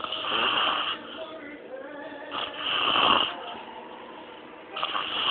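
A sleeping man snoring, with three loud snores spaced about two and a half seconds apart.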